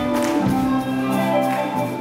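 Live church music: sustained keyboard chords with a few percussion hits.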